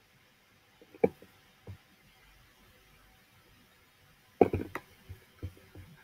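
Quiet room tone broken by a few short, soft knocks and clicks: one about a second in, a fainter one just after, and a louder quick cluster about four and a half seconds in.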